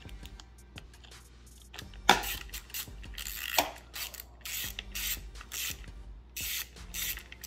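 Screwdriver backing Phillips screws out of a Ducati Panigale V4's throttle housing: a few faint clicks, then from about two seconds in a run of short rasping, ratchet-like strokes, roughly two a second.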